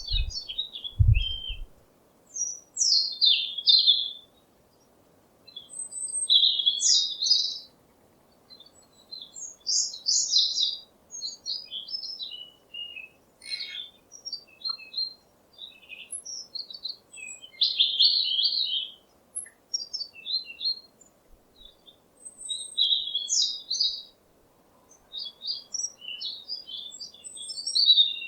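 Songbird singing: repeated phrases of high chirps and quick trills, each a second or two long, with short pauses between them. A few low thumps sound in the first two seconds.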